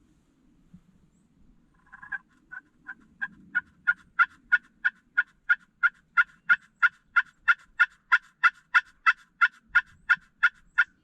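A long run of short turkey yelps, about three a second, growing louder over the first couple of seconds and then holding steady.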